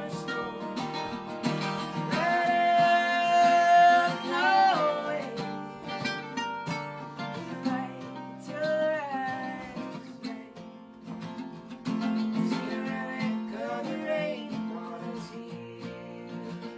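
Live acoustic folk song: two acoustic guitars strumming and picking while a woman sings, holding one long note about two seconds in that wavers as it ends.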